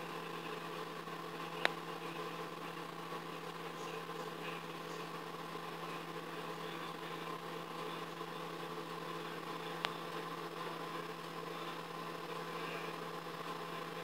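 Microwave oven running on high: a steady electrical hum with a couple of sharp clicks, one about two seconds in and one near ten seconds.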